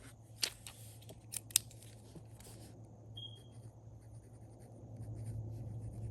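A few short, sharp snips and clicks in the first second and a half as paper stationery is handled, then only a steady low room hum.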